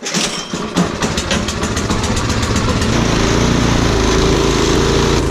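Snowblower engine starting up: it fires unevenly for about two seconds, then settles into a steady run.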